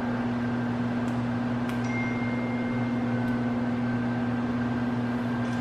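Steady low electrical hum of a running kitchen appliance, with one held low tone, unchanging in level.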